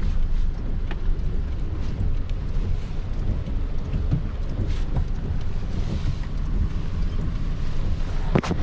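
Truck engine running at low speed while maneuvering, with wind noise on the microphone and a few faint knocks.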